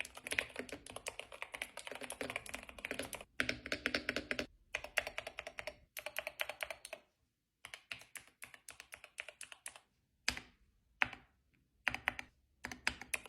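Typing on a Keychron K4 HE keyboard with magnetic Nebula linear switches: rapid key clicks in runs of a second or two, with short pauses between the runs.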